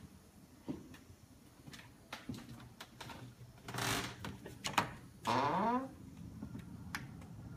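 A French door being unlocked and opened: several sharp clicks of the thumb-turn lock and latch, a short scrape, then a creak of the door swinging on its hinges about five seconds in.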